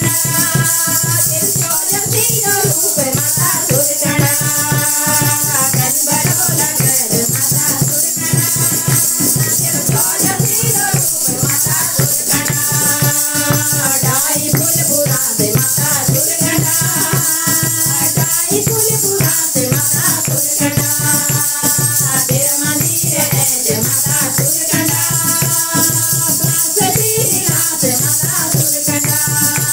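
Women singing a Garhwali devotional bhajan, a lead voice on a microphone with the group joining in, over a steady rhythm of hand-clapping and drum beats.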